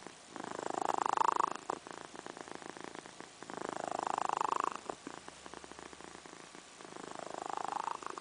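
Domestic cat snoring in its sleep: a fluttery, rattling rasp that swells with each breath, three louder breaths about three seconds apart with quieter rattling between.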